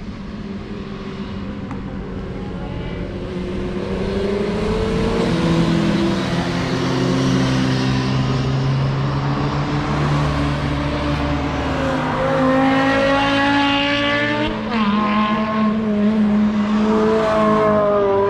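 Cars driving past on a race track one after another, their engines overlapping, the sound building up over the first few seconds as they approach. The engine notes rise and fall in pitch as the cars accelerate and ease off, with a fresh rising note about two-thirds of the way through.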